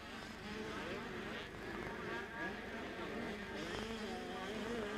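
A field of small 60cc two-stroke junior motocross bikes revving together at the start line, many engines overlapping with pitches wavering up and down.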